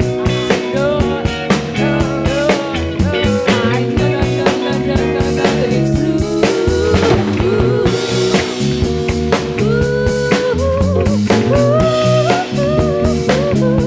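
A rock band playing live, with drum kit and electric guitars in a steady groove.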